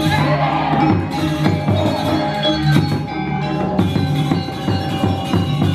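Music with ringing struck metal percussion and drums, a regular beat of struck notes over sustained tones.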